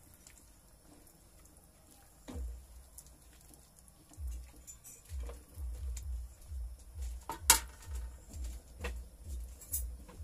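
A thick cream sauce simmering in a nonstick frying pan, giving soft, deep plops at about three a second, while a silicone spatula stirs it and clicks against the pan. One sharp click comes about seven and a half seconds in.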